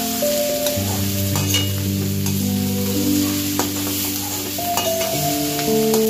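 Corn kernels and potato chunks sizzling as they are stir-fried in a metal wok, with a metal spatula scraping and knocking against the pan several times. Soft instrumental music with long held notes plays underneath.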